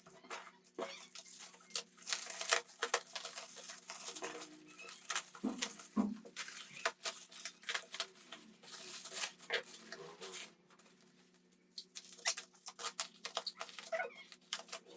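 Rapid, irregular clicks, taps and scrapes of hard plastic and metal being handled, typical of a laptop being worked on with small tools, over a steady low electrical hum. The clicking eases off for a second or so past the middle, then resumes.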